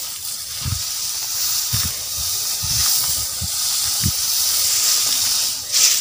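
Tall grass swishing and rustling as people push through it on foot, with soft footstep thuds about once a second.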